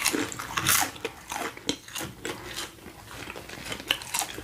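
A person biting into and chewing crispy breaded chicken close to the microphone: a string of irregular crunches of the crisp coating.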